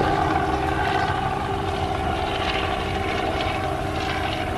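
Steady engine drone with a constant humming pitch, easing off slightly near the end.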